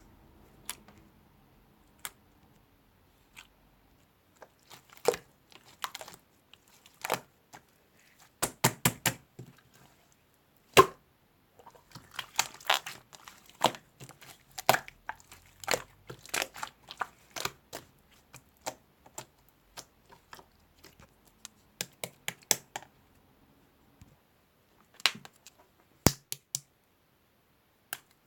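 Irregular sharp clicks and short crinkling, crackling handling noises, some in quick clusters and some alone, with quiet gaps between them.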